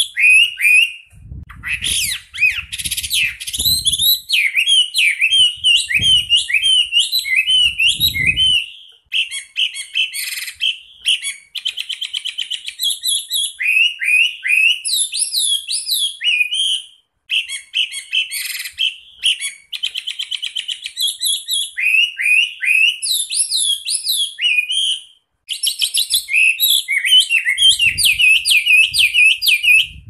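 Chinese hwamei singing a long, loud song of fast slurred whistled notes packed tightly in rolling runs, the rapid-fire 'tembakan rapat' style, with three short breaks along the way.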